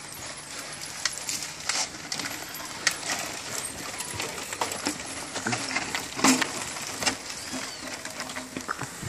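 Mountain bikes rolling over a rough dirt trail past the microphone: tyre noise on dirt and stones, with repeated metallic clinks and knocks from the bikes, the loudest about six seconds in.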